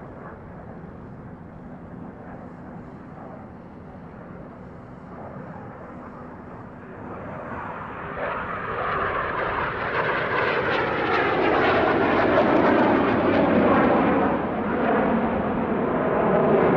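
Yakovlev Yak-130 jet trainer's twin turbofan engines roaring in a display pass: a distant rush for the first several seconds, then growing steadily louder as the jet comes close, loudest about two-thirds of the way through, with its tone falling as it goes by.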